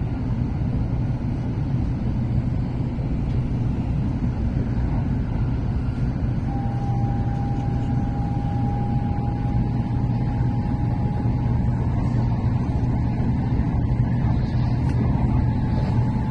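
Running noise inside a Shinkansen passenger car: a steady low rumble and hum from the train under way. About six seconds in, a thin whine starts and slowly rises in pitch.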